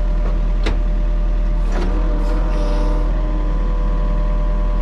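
Yanmar mini excavator's diesel engine running steadily while the hydraulics curl the bucket in. Two sharp clicks come in the first two seconds, and from about two seconds in a steady hydraulic whine joins the engine hum for a second or two, then fades.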